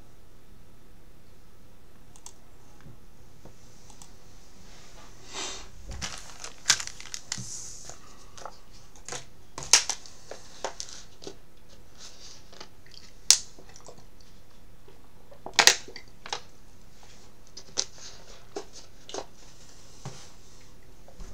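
Shrink wrap crinkling and tearing as it is peeled off a sealed box of trading cards, in scattered sharp crackles and short rustles.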